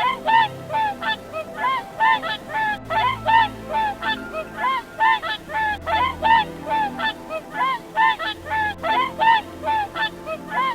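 Swans honking: short arched calls repeated two or three times a second.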